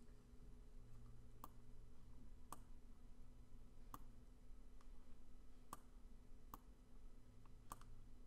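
Computer mouse clicking: about eight short, sharp clicks spaced irregularly, roughly one a second, over a faint steady hum.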